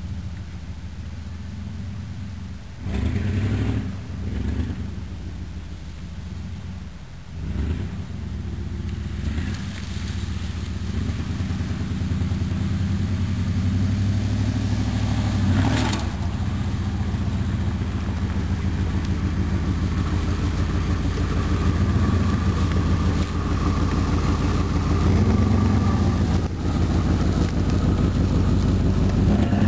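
The 1993 Chevrolet K1500 Silverado's 305 cubic-inch V8 running as the pickup drives toward the listener, getting steadily louder as it approaches. The engine revs up briefly about three seconds in and again about seven seconds in.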